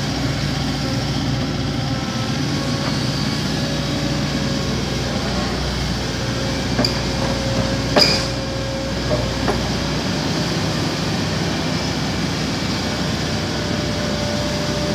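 John Deere 135G excavator's diesel engine running steadily as it digs, with one sharp knock about eight seconds in and a few lighter knocks around it.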